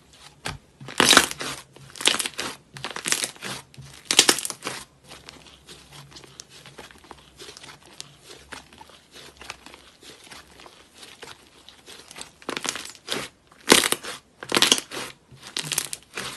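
Thick yellow slime being stretched, squeezed and poked by hand, giving short bursts of crackling noise. There are four bursts in the first few seconds and four more near the end, with softer handling sounds between them.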